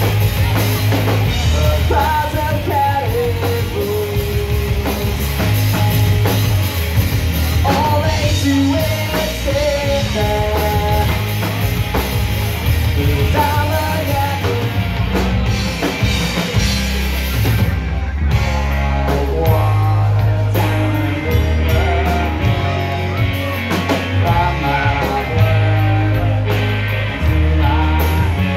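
Rock band playing live: electric guitars, bass guitar and drum kit, the music changing texture about two thirds of the way through.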